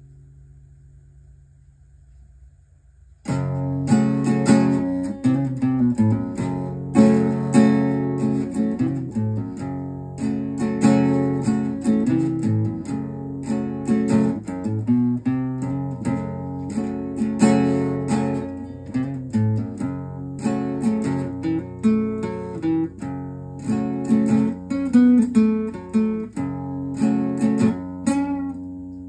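Acoustic guitar: a low chord dies away, then about three seconds in the playing starts again with rhythmic strummed chords and picked notes that continue steadily.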